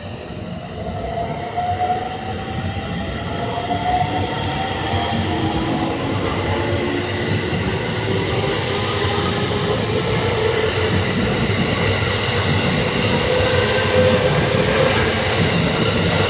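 Electric train running at the platform with a steady rumble of wheels on rail. Its motor whine rises slowly in pitch as the train gathers speed.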